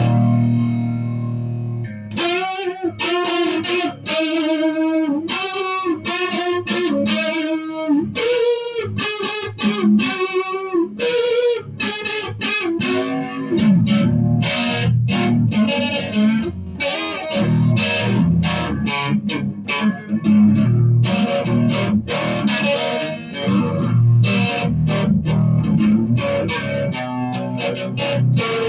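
Electric guitar played through a 1969 Sound City amp and Scumback speakers. A ringing chord opens, then a single-note lead line with bent, wavering notes, and about halfway in it turns to fuller chord playing with a heavier low end.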